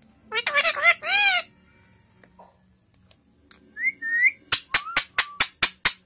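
Indian ringneck parrot calling: two harsh, pitched squawks in the first second and a half, then two short rising whistle notes about four seconds in. A quick run of about eight sharp clicks follows near the end.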